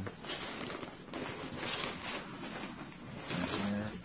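Thick canvas bag being handled, its stiff fabric rustling and scuffing in uneven bursts as it is opened out and spread on a counter.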